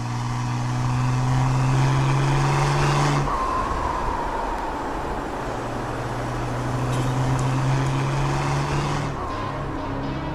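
BMW E90 330d's straight-piped six-cylinder diesel engine running at a steady cruise. Its steady low drone steps down in pitch about three seconds in, then holds again.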